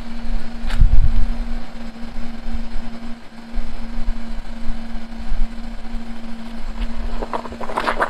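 A steady motor hum over a fluctuating low rumble, with a single click about a second in and a quick run of sharp clicks near the end.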